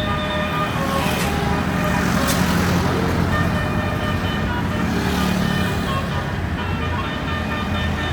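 Bus telolet horn playing a stepped multi-tone melody over the steady rumble of the bus engine, with a brief pause about two to three seconds in.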